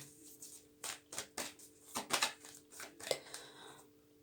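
Tarot cards being handled and laid out on a table: a series of light, irregular clicks and taps.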